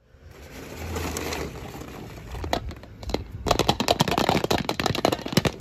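Hard plastic toys handled by hand: a rustle with a rapid clatter of small clicks, thickest in the second half.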